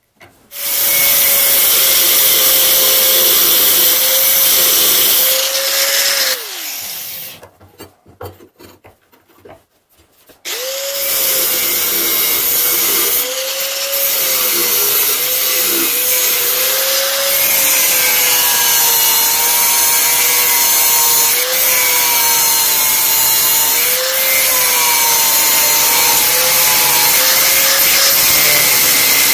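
Angle grinder with a thin abrasive cut-off disc running at full speed, then switched off and spinning down about six seconds in. It starts again about ten seconds in and cuts through a steel saw blade, its whine wavering in pitch as the disc is pressed into the metal.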